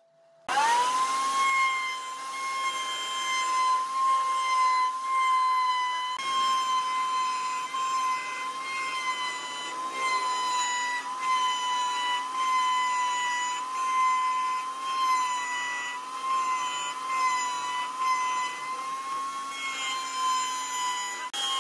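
Table-mounted wood router starting up about half a second in, its whine rising quickly to speed and then running as a steady high whine. A flush-trim bit trims the edge of a segmented hardwood ring fed against it, and the pitch wavers slightly under the cut.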